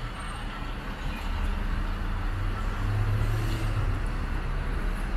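City street traffic: a motor vehicle's engine rumbling past, growing louder about two seconds in.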